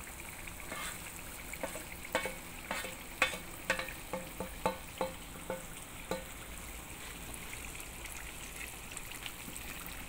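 Dried red chillies and curry leaves frying in hot oil in a pan as a tempering: a steady sizzle, with a run of about a dozen sharp pops and crackles over the first six seconds, then the sizzle alone.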